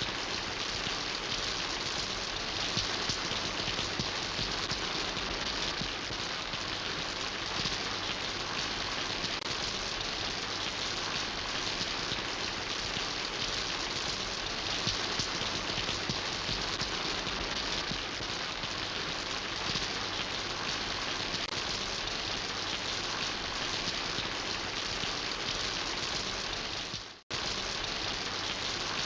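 Steady rain falling, an even wash of many drops that drops out for a moment near the end.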